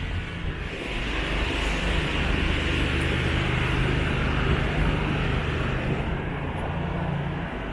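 A motor vehicle passing nearby, its engine and tyre noise swelling from about a second in and easing off near the end.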